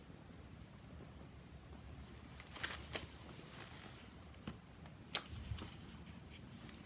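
Faint handling of a hardcover picture book, its page being turned: a brief flurry of paper rustles and light taps about midway, then one sharper tap a couple of seconds later.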